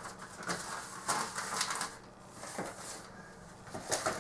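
Newspaper flyers rustling and crinkling in short, irregular bursts as they are handled and pushed into a narrow gap in the wall.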